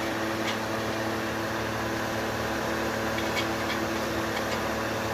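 Steady mechanical hum of a running fan-type machine with a low steady tone. A few faint light metallic clicks come about half a second in and again between three and four and a half seconds in, as an O2 sensor is turned by hand into its threaded spacer on a stainless steel exhaust mid-pipe.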